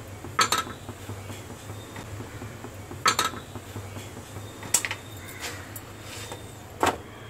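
Steel kitchen utensils clinking: four separate sharp knocks of steel plates and bowls being handled, spaced a second or two apart, over a low steady hum.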